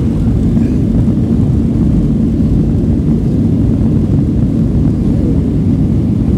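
Inside the cabin of a Southwest Airlines Boeing 737 rolling along the runway: a steady, loud, low rumble of the jet's engines and wheels.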